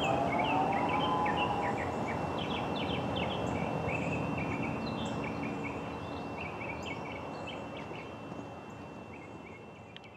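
The tail of a distant Federal Signal Modulator II 8032-B dual-tone siren: two tones rising together and ending about a second and a half in. After it, birds chirping and a thin steady high whine, all fading slowly away.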